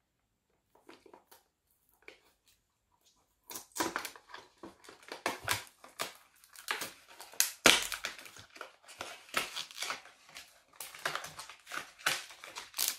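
Plastic packaging of a transparent phone case crinkling and crackling as it is handled and opened, starting about three and a half seconds in, with one sharper crack near the middle.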